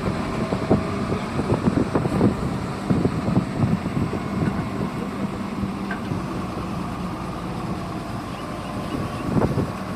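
Hyundai 140W wheeled excavator's diesel engine running steadily. Irregular knocks and clatter come through the first half.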